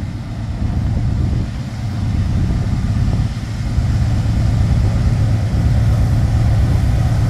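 Union Pacific diesel freight locomotives approaching: a steady low engine rumble that grows louder about three and a half seconds in.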